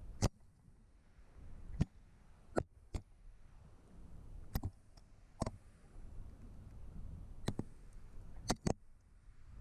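Sharp irregular knocks, about nine in all, as a chimney inspection camera bumps against the brick flue walls while it is lowered, over a low rumble.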